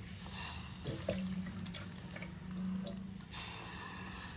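Handfuls of diced banana stem dropped into a pressure cooker of soaked moong dal and water: wet splashes and drips in two spells, near the start and again near the end, over a low steady hum.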